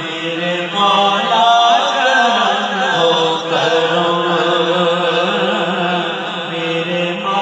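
Male voice singing an Urdu munajat (devotional hymn) into a microphone, drawing out a long, ornamented phrase that wavers up and down in pitch. It grows louder about a second in, over a steady held note from other voices beneath.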